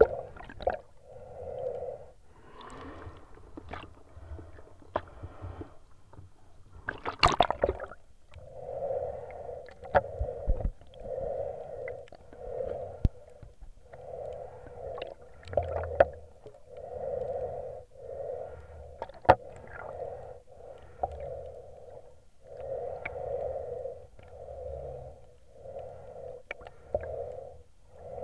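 Muffled water sounds heard through an action camera's waterproof housing underwater: a dull whoosh repeating about once a second, with scattered sharp clicks and a louder crackling burst about seven seconds in.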